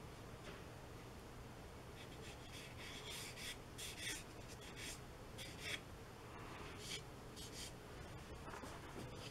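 Paintbrush making short, quick strokes on watercolour paper: a run of faint brushing swishes, most of them between about two and six seconds in, with a few more near seven.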